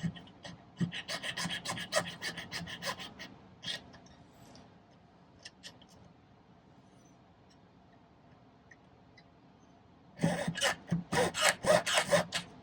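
Jeweller's saw cutting sterling silver wire in quick back-and-forth strokes, in two bursts several seconds apart.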